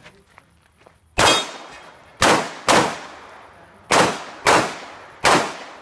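Six handgun shots fired at an uneven pace: one, then two quick pairs, then one more near the end, each echoing briefly.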